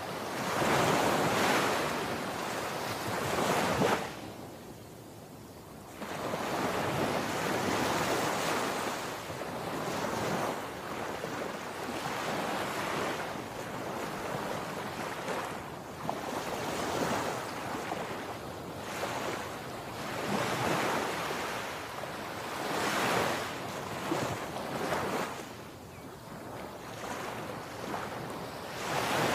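Sea surf breaking and washing up a sandy beach. The rush swells and eases with each wave, with a short lull a few seconds in.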